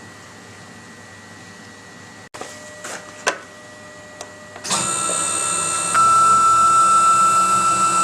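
Quick CNC K6100A CNC router: a few light clicks over a low hum, then about halfway through the spindle starts with a steady, many-toned high whine that gets louder about a second later.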